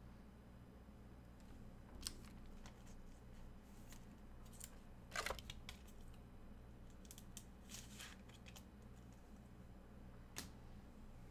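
Faint, scattered clicks and rustles of trading cards and their packaging being handled, loudest about five seconds in, over a steady low hum.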